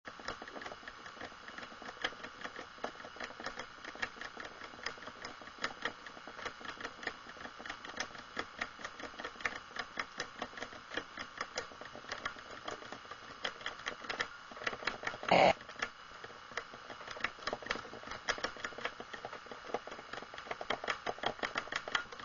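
Rapid, uneven mechanical clicking, several clicks a second, over a steady hum, with one louder short burst about fifteen seconds in.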